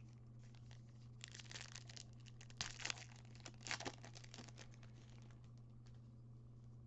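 Plastic wrapper of a trading-card pack crinkling and tearing as it is opened: a run of faint crackles lasting about three seconds, with two louder rips in the middle.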